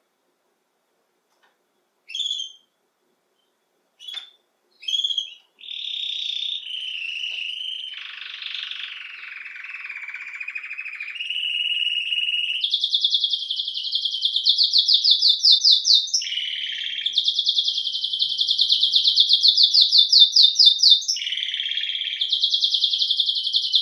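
Domestic canary singing: a few short chirps about two seconds in, then a long unbroken song of rapid trills that change pitch and speed every second or two, getting louder after the middle.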